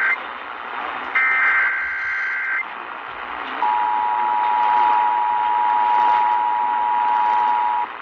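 Emergency Alert System severe thunderstorm warning coming over AM radio through a small portable Eton radio's speaker. A screeching SAME data burst ends right at the start and another follows about a second in, lasting about a second and a half. Then the steady two-tone attention signal (853 and 960 Hz) holds for about four seconds, over AM static hiss.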